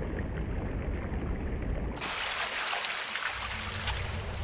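Water running and trickling off a soldier's soaked kit as he stands in a shallow stream. About two seconds in, the sound switches abruptly to a brighter, hissing outdoor water ambience.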